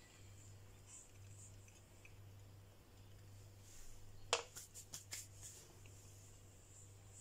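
A quick run of sharp clicks about four seconds in, one loud click and then several lighter ones over about a second, against a faint steady electrical hum.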